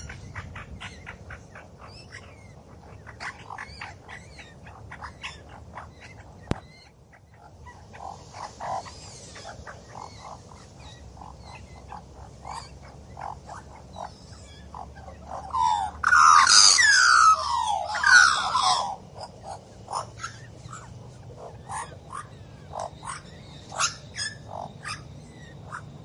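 Australian magpie calling: scattered short notes throughout, then a loud burst of warbling song with gliding pitch lasting about three seconds past the middle.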